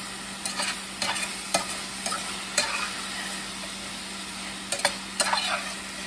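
Chicken, mushrooms and green beans in teriyaki sauce sizzling gently in a stainless steel skillet on reduced heat, while a spatula stirs them, scraping and knocking against the pan several times over the steady sizzle.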